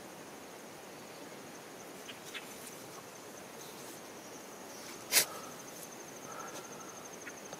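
Insects trilling steadily in a field, one high pulsing note that never stops, over a faint outdoor hiss. A few light ticks and one sharp click about five seconds in.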